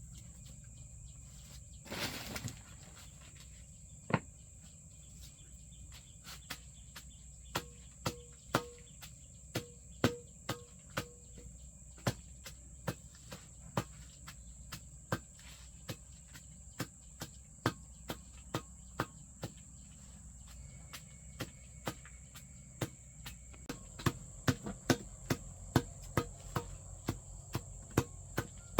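A steady, high-pitched drone of crickets or similar insects, with a series of sharp knocks or chopping strikes that come irregularly at first, then louder and about twice a second near the end.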